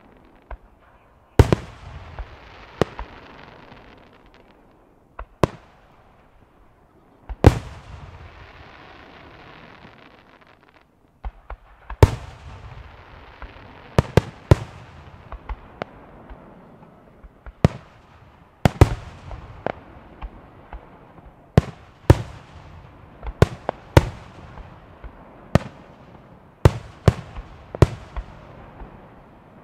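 Aerial firework shells bursting one after another at irregular intervals. Each sharp bang is followed by a long echo, and in the busiest stretches the bangs come several a second.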